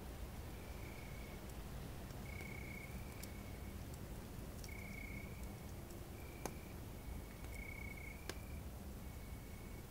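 Crickets trilling in short high-pitched bursts about once a second, with a few sharp crackling pops from a campfire, two louder ones in the second half, over a low steady rumble.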